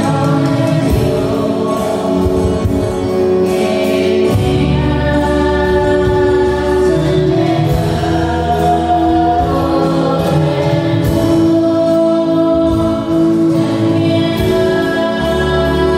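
A choir singing religious music in long held notes.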